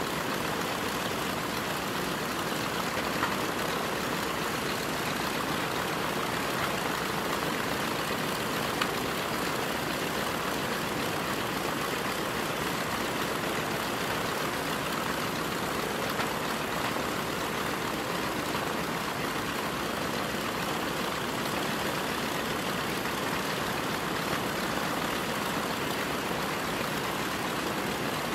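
A B-25J Mitchell's two Wright R-2600 fourteen-cylinder radial engines running steadily at low power.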